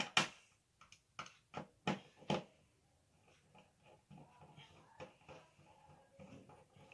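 Hand screwdriver driving a wall-mount screw into the back of an LED TV: about six sharp clicks in the first two and a half seconds, then fainter irregular ticking and scraping as the screw is turned.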